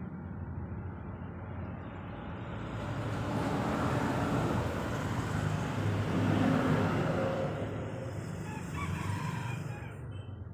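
Outdoor background noise that swells over a few seconds and fades, with a rooster crowing partway through.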